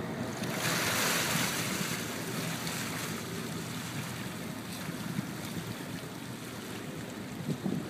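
Wind and sea water washing around a sportfishing boat over a low, steady engine rumble. A louder hissing rush comes about half a second in and fades over the next two seconds.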